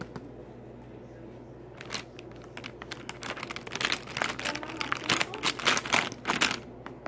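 Rapid, dense scratching and rustling on paper close to the microphone, starting about two seconds in and stopping shortly before the end, over a low steady hum.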